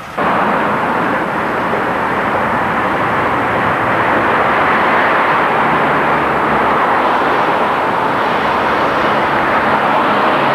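A vehicle driving: a steady rushing road noise that starts abruptly and holds at an even level.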